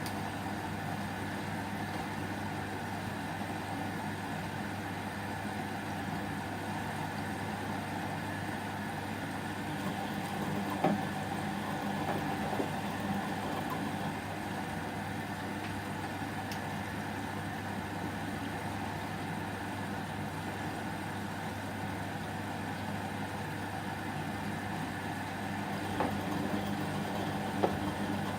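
Whirlpool front-loading washing machine running early in a 30° delicate wash cycle: a steady hum, with a few light knocks about ten seconds in and again near the end.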